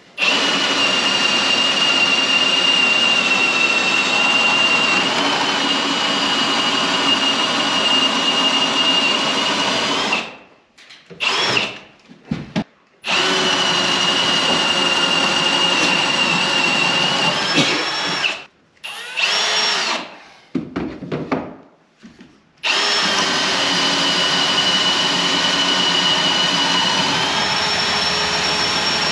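Handheld power drill running at the top of a door frame. It makes three long steady runs of roughly ten, five and six seconds, with short stop-start bursts between them. Its whine holds one pitch and steps up in pitch late in the last run.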